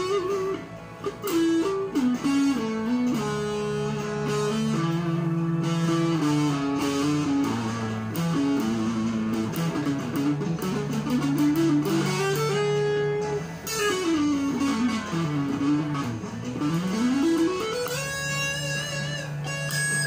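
Electric guitar playing a slow lead melody, with notes sliding between pitches and several quick runs up and down the neck in the second half, over steady lower notes held underneath.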